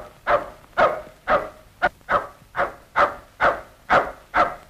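A dog barking steadily and insistently, about two short barks a second, with no pause.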